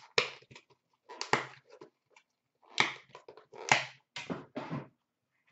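Hands handling trading card boxes and packaging: a series of about six short, sharp rustles and clatters.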